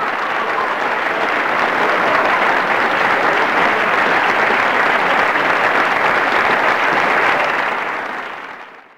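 Audience applause, a dense even clatter of clapping that builds slightly at first, holds steady, then fades out near the end.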